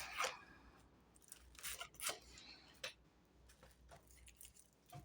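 Fortune-telling cards being handled: a few faint, brief papery slides and taps as cards are moved and laid down.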